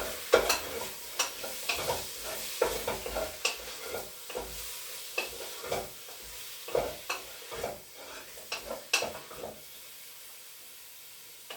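Diced chicken sizzling in a hot pot while a utensil stirs it, giving irregular scrapes and knocks against the pot; the stirring stops near the end, leaving only a faint sizzle.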